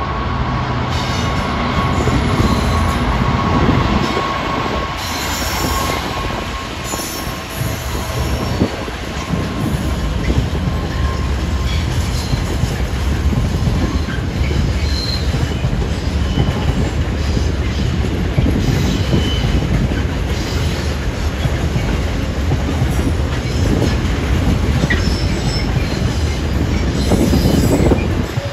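Two Freightliner Class 66 diesel locomotives, EMD two-stroke V12 engines running, pass at the head of an intermodal container train. A long rake of container wagons follows, rumbling by with wheel squeal.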